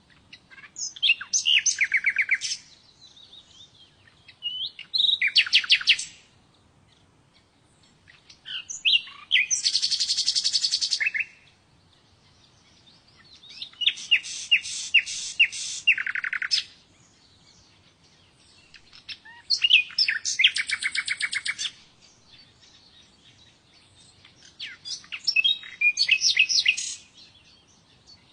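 Small birds chirping in six separate bouts of rapid, repeated high notes. Each bout lasts about two seconds and comes every four to five seconds, with near quiet between them.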